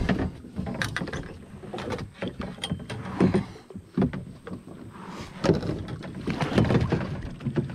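Irregular knocks and bumps of a plastic kayak hull and paddle being handled as the paddler shifts in the seat.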